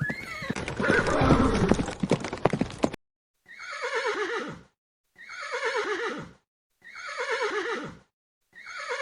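Horse whinnying. Over the first three seconds the neigh mixes with hooves clip-clopping. Then the same whinny comes four times with silent gaps, each one a shaky call that falls in pitch.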